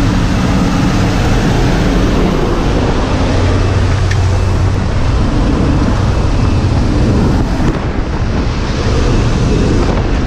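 Jump plane's engines droning steadily, with a heavy rush of wind buffeting the helmet camera's microphone as the skydivers line up to exit.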